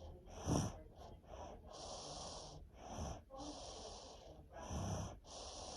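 Congested snoring: three short, rough snores about two seconds apart, each followed by a long breathy hiss. This is the snoring of a sleeper blocked up by a head cold.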